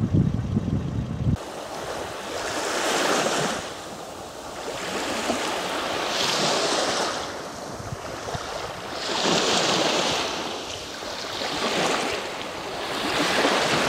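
Surf of the rough Sea of Azov breaking on the shore, the noise swelling and falling away with each wave, about every three seconds. For the first second and a half a low vehicle engine rumble is heard, then it stops abruptly.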